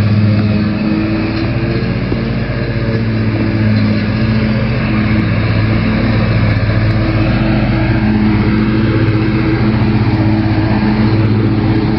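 Troy-Bilt zero-turn riding mower running steadily while it mows overgrown grass, its engine making a loud, even hum.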